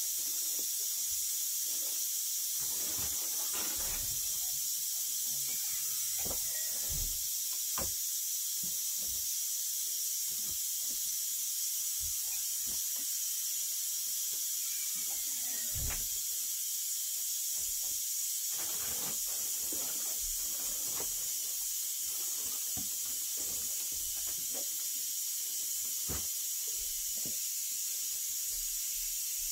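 A steady high hiss, with scattered faint knocks and rustles of household things and a woven blanket being handled.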